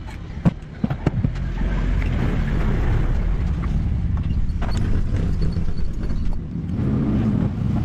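A few sharp metal clicks as a long screwdriver is levered against the crankcase cover of a Tecumseh engine, followed by a steady low rumbling noise.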